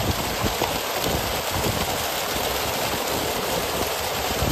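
Dense, steady splashing of a mass of fish thrashing at the water's surface, crowded together in a closing net.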